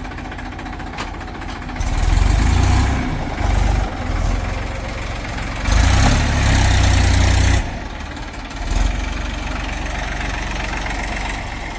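Heavy diesel engine idling, twice surging loud: once for about a second, about two seconds in, and once for nearly two seconds, around the middle. This is typical of the engine being worked up under load.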